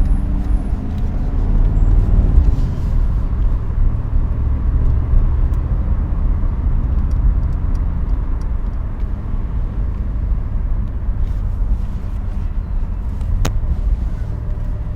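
Mercedes-AMG SL 63's 4.0-litre twin-turbo V8 running steadily while driving, a low engine note over road noise, with a single sharp click near the end.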